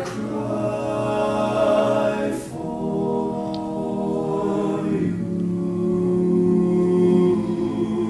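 All-male a cappella group singing long sustained chords in close harmony, with the chord shifting about two and a half seconds in and again about five seconds in.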